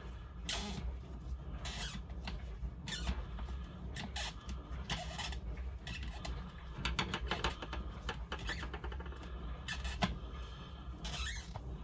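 Irregular scrapes, squeaks and clicks of hands working on a laptop's plastic screen assembly during a screen replacement, over a low steady hum.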